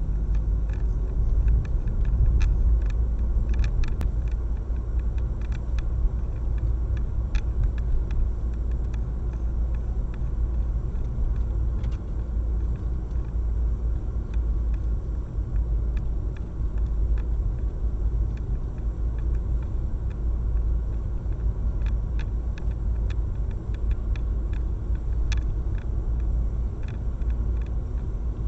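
Steady low rumble of a moving car's road and engine noise, heard from inside the cabin through a dashcam microphone, with scattered faint clicks.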